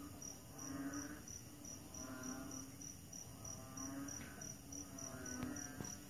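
Night chorus of crickets chirping in a steady rapid pulse, high-pitched, with frogs calling: a short croaking call about every one and a half seconds. A couple of light clicks near the end.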